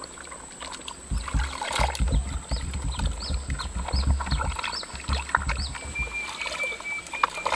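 Hands sloshing and scrubbing a mud-caked plastic toy dump truck under muddy water in a tub, with water splashing and slapping against the tub.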